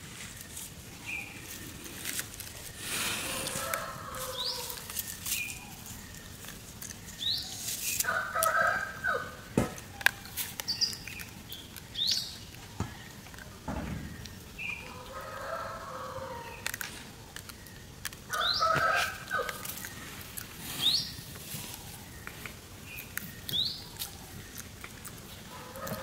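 Repeated high-pitched animal calls: squealing cries of about a second each, coming every few seconds, some sliding down at the end, with short quick rising chirps in between.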